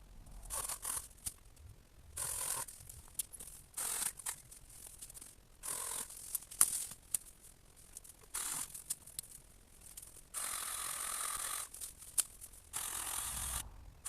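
Battery-powered mini chainsaw cutting viburnum branches in short bursts, about eight cuts of half a second to a second and a half, with sharp cracks and snaps of wood between them.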